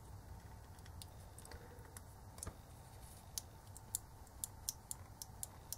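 Light, sharp clicks of fingers handling the opened plastic casing of a small digital voice recorder. The clicks are sparse at first and come several a second in the second half.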